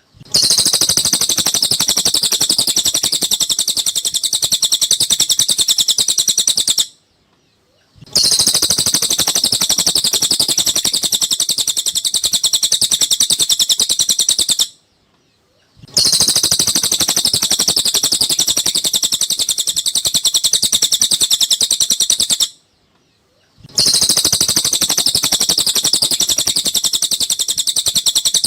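Looped recording of a cililin's song: bouts of about seven seconds of rapid, high chattering notes, broken by three one-second silences. It is played as a masteran track for caged songbirds to copy.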